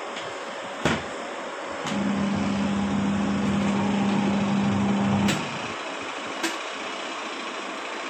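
Semi-automatic washing machine's motor humming steadily for about three seconds, then cutting off suddenly. Sharp clicks come before it starts, as it stops, and once more after.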